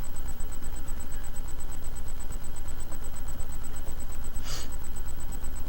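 Steady low hum with a faint high whine, and a brief soft hiss about four and a half seconds in.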